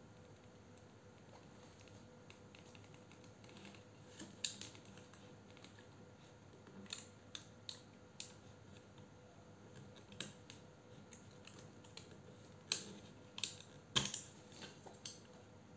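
Irregular small clicks and taps as hands handle a 9.6 V National cordless drill and poke jumper wires at its deep-set battery terminals, loudest in a short cluster near the end. The drill's motor does not run.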